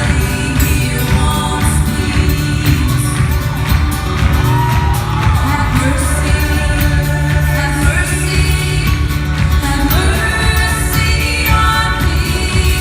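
Live band music with singing: a song played at a steady loud level, voices over a full band.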